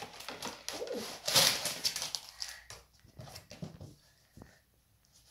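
Cardboard craft box being handled and tipped, its card pieces and plastic stands sliding and knocking out, with rustling and light clicks. Loudest about a second and a half in, then it dies away to near silence near the end.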